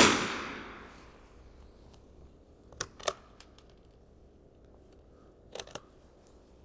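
A single .22 LR rifle shot, its report dying away over about a second. A few light metallic clicks follow, two about three seconds in and two more near the end.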